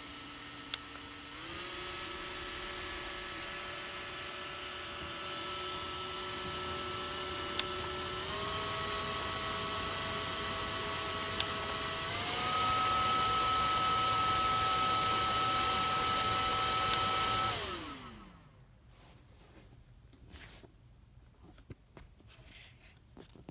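A JISULIFE bladeless stroller fan's small motor is whining steadily. Its pitch steps up three times as it is clicked through its speeds, each step just after a button click, and it is loudest at the top speed. It is then switched off and winds down with a falling whine.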